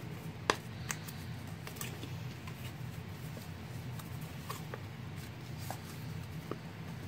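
Patterned cardstock being folded and creased by hand along its score lines: soft paper rustles and small crackles, with a sharp tap about half a second in, over a steady low hum.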